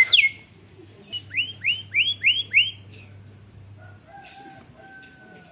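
White-rumped shama (murai batu) singing canary-style phrases: a quick run of falling notes ends at the start, then five sweeping notes, each falling in pitch, about a second in, and two long level whistles near the end.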